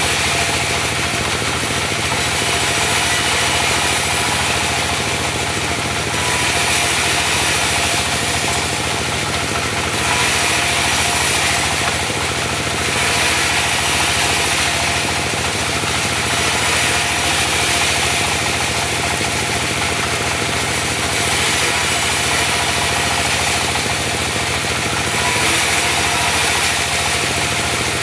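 Diesel engine of a mobile band sawmill running steadily while the band saw cuts mahogany, with a high hissing that swells and fades every few seconds.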